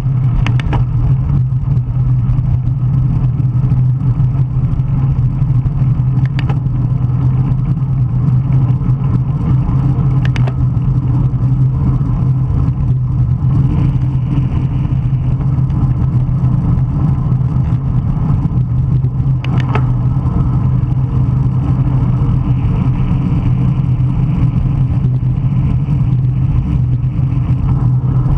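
Strong wind rushing over the microphone of a bicycle racing at speed, a loud steady rumble with a constant low hum, broken by a few brief sharp clicks.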